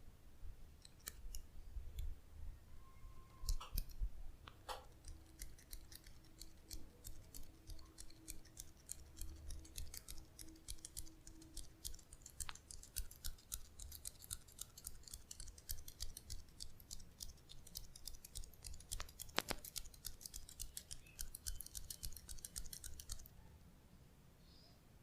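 Rapid, crisp clicks or snips, several a second, thickest over the middle and later part and stopping shortly before the end, with one sharper, louder click about three-quarters of the way through.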